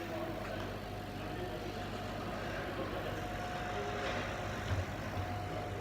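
Kamach 6090 HYPE laser cutter running with its S&A CW-5000AG water chiller: a steady mechanical hum with a steady whine over it, and a short low thump about three-quarters of the way through.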